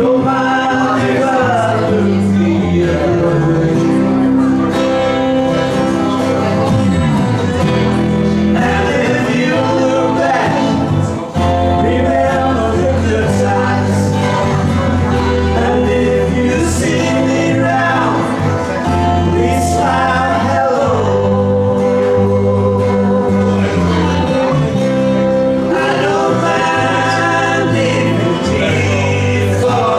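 A small amateur band playing a song live, with men singing over instrumental accompaniment.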